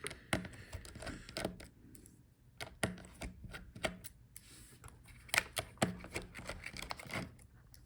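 Irregular light clicks and taps of a small screwdriver and screws as the hinge screws are taken out of a laptop.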